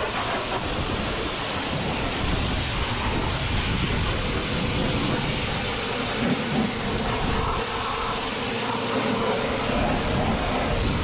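High-pressure washer running, its water jet spraying against farm machinery: a steady hiss of water over the hum of the pump.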